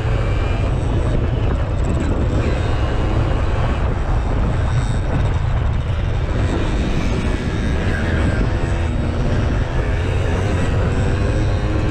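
Simson moped's two-stroke single-cylinder engine running hard, heard from on board while it is ridden, its pitch rising and falling with the throttle.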